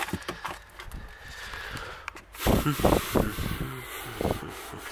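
Things being moved about in a car boot: plastic bags rustling and objects knocking, with handling noise loudest about halfway through.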